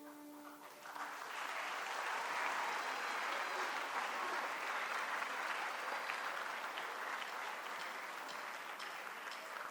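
Audience applause, rising about a second in and holding steady as a musical piece ends.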